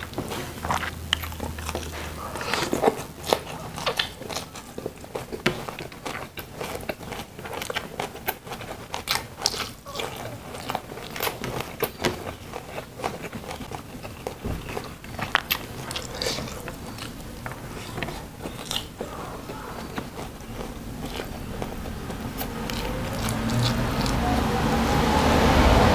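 Close-miked eating with the hand: chewing, smacking and crunchy bites of fried chicken and vegetables, with many short clicks. Near the end a rising hum swells and grows louder, becoming the loudest sound.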